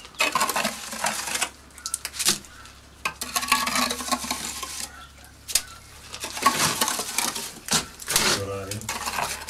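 Steel trowel scraping over a fresh lime-mortar scratch coat on a masonry wall, in repeated strokes of about a second each with short pauses between. The trowel takes off the excess while the mortar is still fresh, following the wall to leave a thin, even layer.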